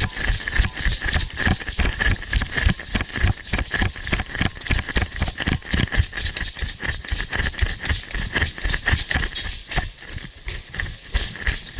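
Quick footsteps of a person moving over rough outdoor ground, about three to four steps a second, with gear rattling.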